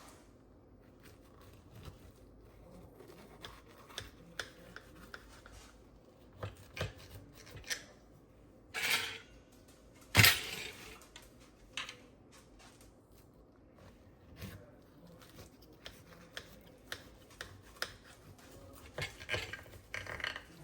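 Scattered clicks and clatters of dishes and utensils being handled in a kitchen, with a brief rustle about nine seconds in and a louder clatter just after it.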